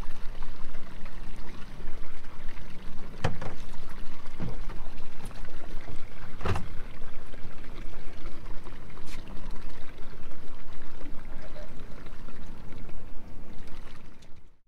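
Water slapping and splashing against the hull of an aluminium fishing boat as it drifts on the river, over a steady low hum. Sharp knocks sound about three, four and a half, and six and a half seconds in.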